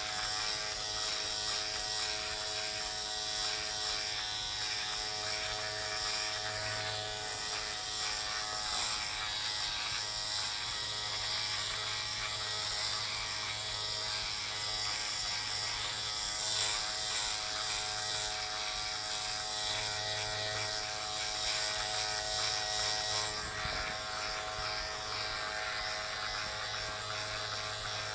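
Electric shaver with its trimmer tip buzzing steadily as it is run over the hair, the hum swelling and easing a little as it moves.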